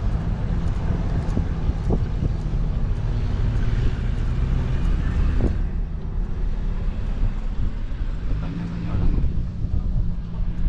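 A car on the move, heard from inside the cabin: a steady low engine and road rumble.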